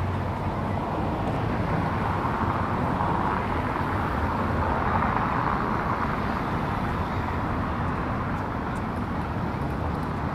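Busy city street traffic: a steady wash of car and engine noise that swells about halfway through as a vehicle passes close by.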